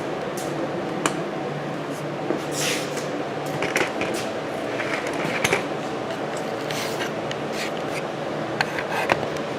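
Handling noise as a camera is set up on a tripod: scattered clicks, knocks and a brief rustle over a steady background hum.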